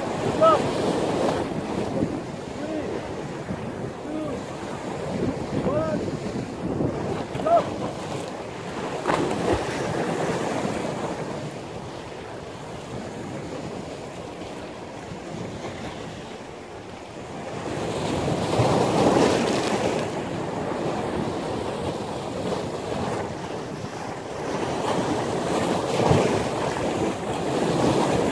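Stormy surf washing and breaking while strong wind buffets the microphone, swelling louder twice in the second half. A few short pitched calls sound in the first several seconds.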